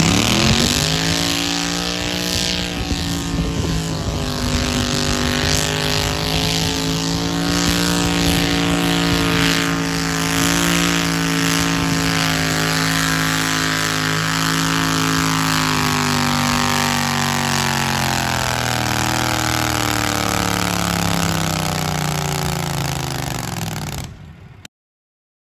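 A garden pulling tractor's engine revs up sharply and runs flat out for a long stretch under load. Its pitch sags slowly over the last several seconds, and then the sound cuts off abruptly.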